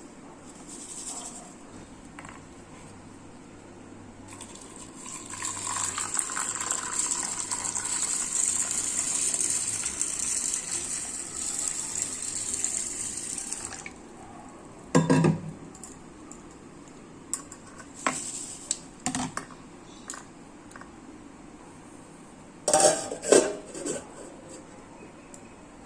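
Water pouring or running into a metal pot for several seconds, then metal pots and utensils clanking: a sharp clank about halfway through and a loud cluster of knocks near the end.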